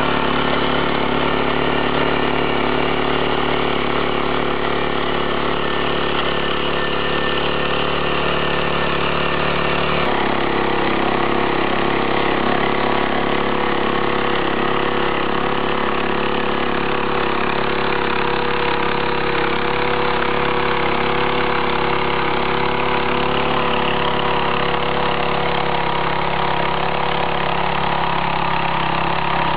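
Small petrol engine of a walk-behind mini tiller running steadily under load while its disc ridger works the soil. Its note shifts abruptly about ten seconds in.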